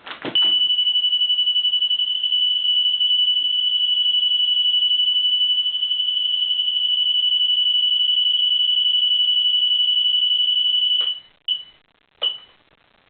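Honda Access genuine motorcycle security alarm sounding a single steady high-pitched tone for about ten seconds after a brief click. It then gives two short chirps near the end.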